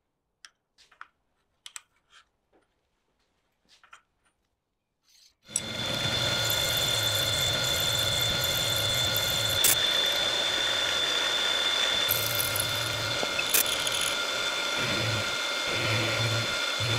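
Near silence with a few faint clicks, then about five and a half seconds in a milling machine comes in suddenly and runs steadily, its end mill cutting into aluminium with a steady whine over a low hum. Two sharp clicks stand out during the cut.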